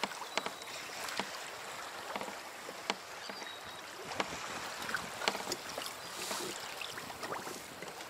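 Choppy sea water lapping and splashing against a kayak hull over a steady hiss, with irregular sharp clicks and ticks.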